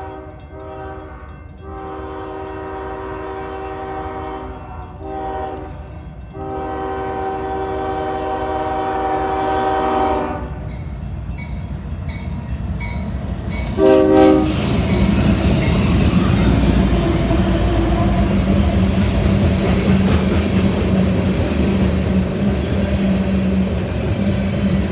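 CSX freight locomotive's air horn sounding several blasts over the first ten seconds or so, then one short blast a few seconds later. The loud rumble of the diesel locomotive and freight cars passing close follows, with a steady engine drone.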